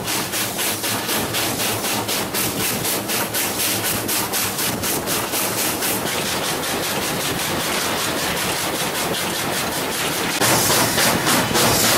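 Nevada Northern steam locomotive No. 40, a Baldwin 4-6-0, working along the track under steam: a quick, even chuffing of about five beats a second over a steady hiss. The beat blurs into a steady rush for a few seconds in the middle, then comes back louder and plainer near the end.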